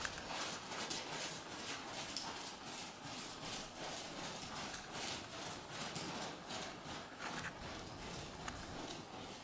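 Hoofbeats of a horse cantering on soft sand arena footing: a steady, even rhythm of dull strikes.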